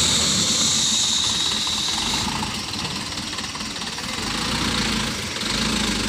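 Diesel engine of a Mitsubishi Colt Diesel truck running as the truck creeps along a muddy track. A high steady whine sits over the engine and stops about two seconds in.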